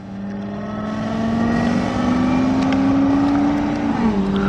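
Fire truck accelerating away, growing louder; its engine note climbs steadily, then drops suddenly about four seconds in as the transmission shifts up.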